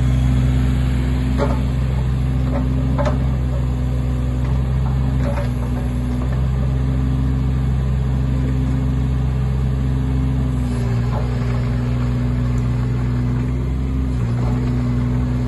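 Kubota KX015-4 mini excavator's three-cylinder diesel engine running steadily as the machine works its boom and arm, the engine note shifting slightly a couple of times. A few short metallic clanks come through over the engine.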